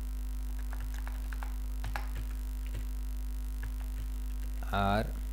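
Steady electrical mains hum, with faint scattered computer-keyboard key clicks as text is typed and deleted. A man's voice comes in briefly near the end.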